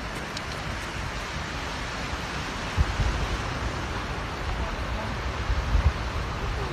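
Wind blowing across the microphone: a steady rushing hiss with low buffeting thumps about three seconds in and again near the end.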